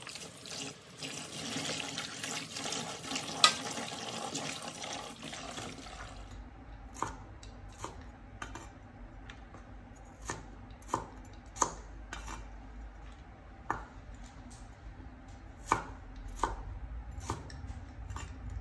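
Water splashing as vegetables are washed by hand in a plastic basin in a sink. About six seconds in, this gives way to a cleaver chopping green bell pepper on a wooden board, a sharp knock with each irregular cut.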